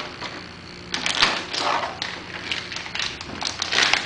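Metal hardware for an LCD console drawer being taken out and handled, giving irregular clicks and clatters, loudest about a second in and near the end.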